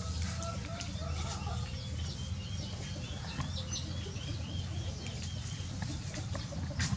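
Birds chirping: a quick run of short, high chirps through the middle, with lower wavering calls in the first second or so, over a low steady rumble.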